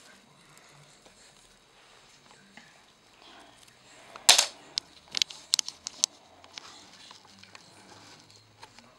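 Kittens pouncing and scrambling after a feather wand toy on a wooden floor: a loud knock about four seconds in, then a quick run of sharp taps and clicks.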